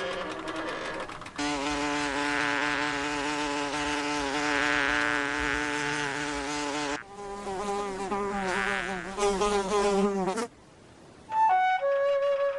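A fly buzzing in flight: a steady, high, droning wing hum that drops in pitch and wavers about seven seconds in, then cuts off suddenly. A few flute notes follow near the end.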